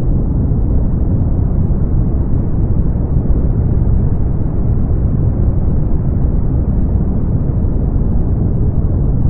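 Brown noise: a steady, deep rumbling hiss with most of its weight in the low end and little above the midrange, unchanging throughout.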